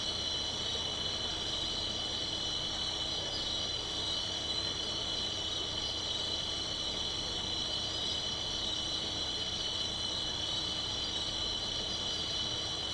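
Night insect chorus: several steady, high-pitched tones held without a break, over a low, even hum.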